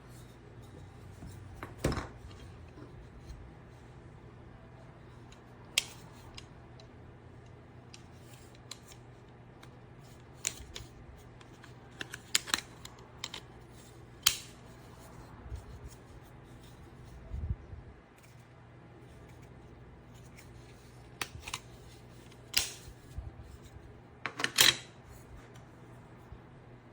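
Scattered sharp clicks and snaps, like small hard objects being handled and set down, over a faint steady low hum.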